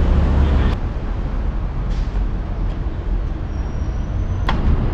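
Steady low rumble of city traffic and passing buses, with one sharp click near the end.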